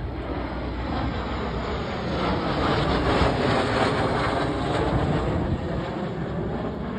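Aircraft flying past at an air show, its engine noise swelling to a peak about three seconds in and then easing off.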